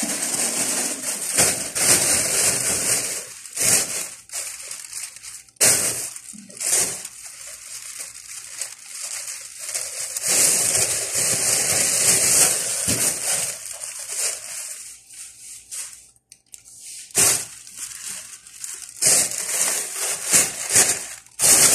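Thin plastic shopping bags rustling and crinkling as they are handled, in irregular bursts with short pauses and one brief lull about sixteen seconds in.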